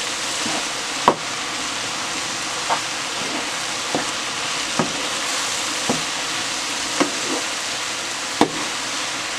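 Cubed eggplant frying in oil in a pot with a steady sizzle, while a wooden spoon stirs it. The spoon gives short knocks against the pot every second or so.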